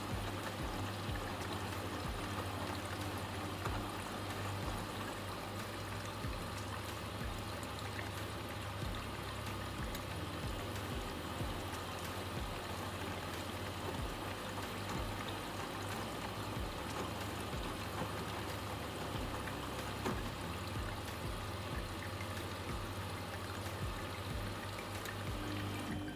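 Vestel washing machine mid-cycle with water rushing steadily through it, over a constant low hum.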